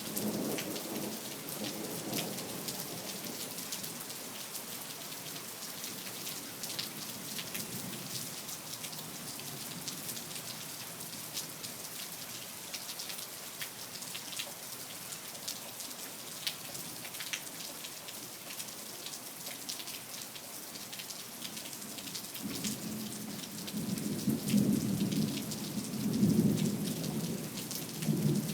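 Steady rain falling, with many fine drop patters over a constant hiss. Low thunder rumbles briefly at the start and swells again in the last few seconds, becoming the loudest sound.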